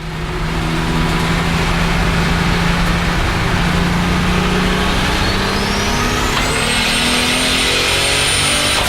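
Turbocharged 3.8-litre BMW M30 inline-six in a 600 hp E34 535i, running hard under load. A turbo whistle rises in pitch about five seconds in and then holds high.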